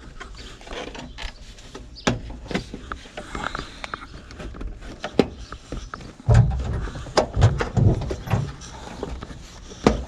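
Irregular clicks, rattles and knocks of a loose part being wiggled out of a 1976 Dodge Power Wagon's steering column by hand, with heavier thumps in the second half.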